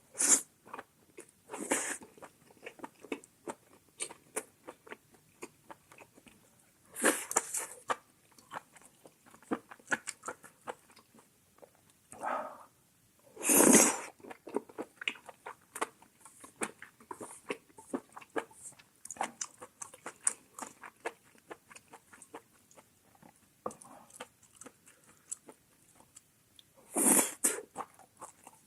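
Close-miked eating of spicy mala xiang guo with glass noodles: steady wet chewing and lip-smacking clicks, broken by about six louder noisy bursts, each under a second long, the loudest about halfway through.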